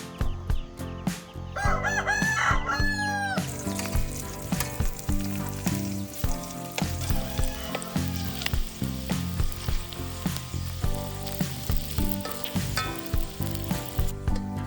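A rooster crows once, about two seconds in, over background music; the rest is oil sizzling as food deep-fries.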